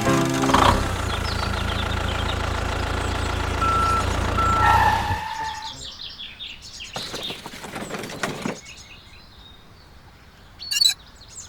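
Engine running steadily with two short beeps about four seconds in, cutting off about five seconds in. Birds then chirp, with a few rustles and a brief sharp sound near the end.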